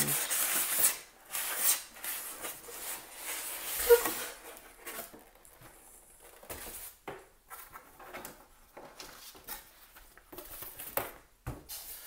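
Cardboard box and packaging being opened and handled: irregular rustling, scraping and light knocks, busiest in the first two seconds, with the sharpest knock about four seconds in.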